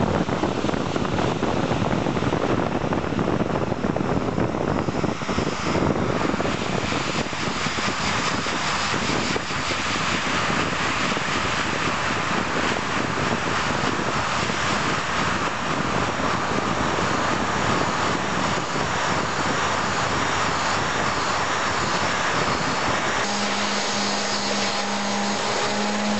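Vacuum cleaner running steadily, driving a Lego model steam engine: a loud, even rushing noise. Near the end it changes abruptly to a steadier hum with a clear low tone.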